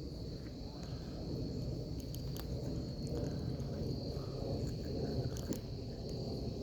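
Insects trilling on one steady, high, even tone over a low rumbling noise, with a few faint clicks.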